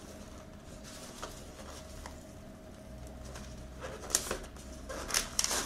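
Cardboard packaging being handled: a paper sleeve scraping and rustling against a small cardboard box, in short sharp bursts about four seconds in and again near the end.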